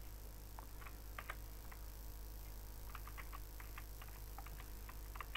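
Faint computer keyboard typing: scattered light key clicks, coming more thickly in the second half.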